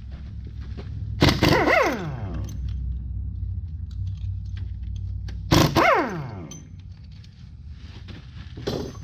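Impact wrench loosening the rocker arm bolts on a GM 5.3 V8, which are still under valve-spring pressure. It fires in two short hammering bursts, about a second and about five and a half seconds in, and after each one the motor spins down with a falling whine. A shorter burst comes near the end, over a steady low hum.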